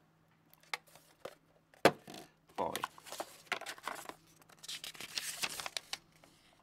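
Paper leaflets rustling and crinkling as they are pulled out of a cardboard box and unfolded, with a single sharp knock about two seconds in as the plastic modem is set down.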